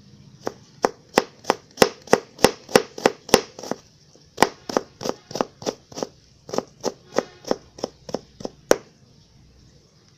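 Kitchen knife slicing ginger root into thin strips on a cutting board: sharp, even knocks about three a second, in two runs with a short break about four seconds in, stopping shortly before the end.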